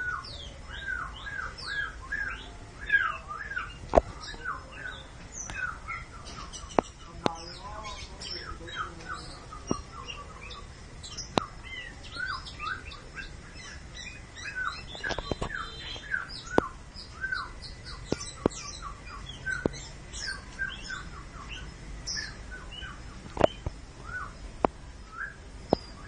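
Oriental magpie-robin calling in a rapid run of short chirping notes, a few a second, mixed with higher whistled notes. Scattered sharp clicks stand out now and then.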